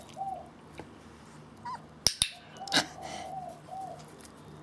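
Young puppy whining in short high-pitched whimpers while begging for a treat held above it: one whimper just after the start, then a run of four or five near the end. Two sharp clicks come close together about halfway through.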